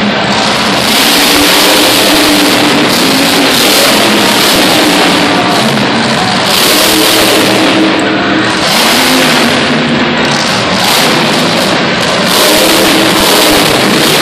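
Grave Digger monster truck's supercharged big-block V8 revving hard in repeated full-throttle bursts, each backing off after a second or two, inside an enclosed arena. Arena music plays underneath.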